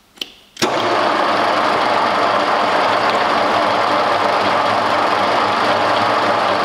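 Vintage Kunming milling machine switched on: a switch clicks, and about half a second in its motor and gearbox start with a sudden onset and run loud and steady, driving the power feed to raise the knee.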